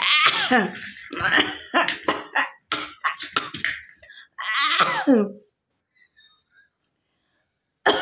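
A woman coughing deliberately in repeated loud bouts, several trailing off in a falling vocal tone. The coughing stops about five and a half seconds in.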